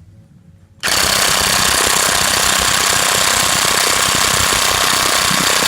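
Electric Matco impact wrench hammering continuously on a very tight lug nut, starting about a second in.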